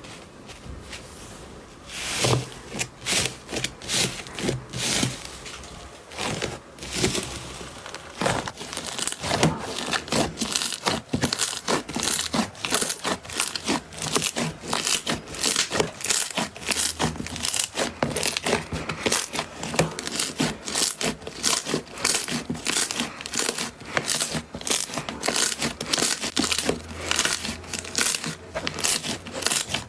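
Slime being pressed and squeezed by hand, giving a dense run of sharp crackles and pops, several a second, that starts about two seconds in.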